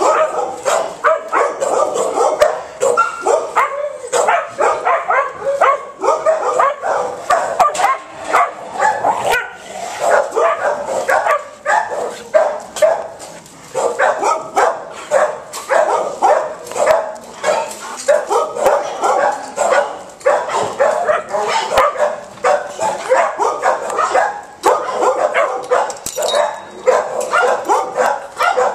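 Dogs barking and yipping almost without pause, many short high calls a second, with faint clicks in between.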